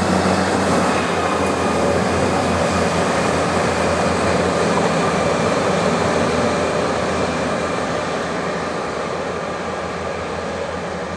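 Schweerbau SPML15 rail grinder running past on the track, a steady mechanical rumble with a low engine hum. It slowly fades as the machine moves away.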